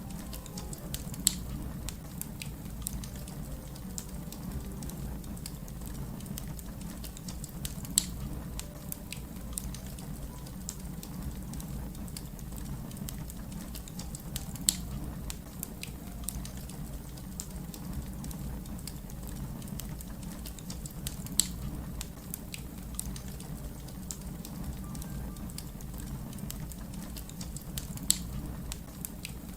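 Wood fire crackling: a steady low rumble of flames under many small ticks, with a louder sharp pop about every six to seven seconds, five in all.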